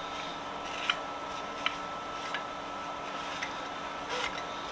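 Faint, scattered light clicks and taps of small metal parts being handled, about one a second, over a steady background hum.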